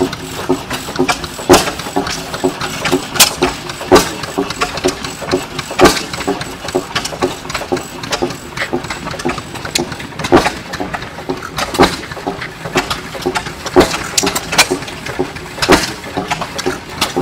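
Several antique stationary gas engines running at once. Loud, sharp exhaust bangs come every one to two seconds at uneven spacing, with quieter, faster firing from other engines underneath.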